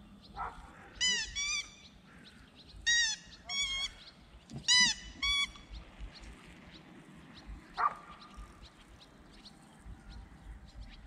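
Short, loud animal calls in groups of two or three, each a brief rising-then-falling note, with a single fainter call about eight seconds in.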